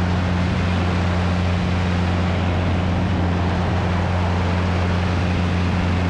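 Cessna 177RG Cardinal's Lycoming IO-360 engine and propeller at takeoff power in the climb just after liftoff: a steady low drone under a rush of air.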